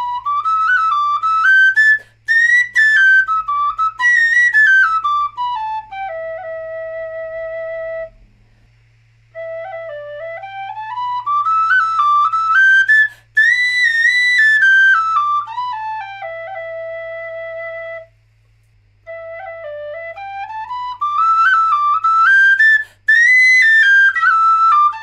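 D tin whistles playing a stepwise scale up into the second octave and back down, ending on a held low D, three times over: first a wire-wrapped nickel-bore whistle, then a wire-wrapped brass-bore whistle, then an unwrapped brass-bore whistle. The unwrapped brass whistle's lower notes are much quieter and its high notes shriller.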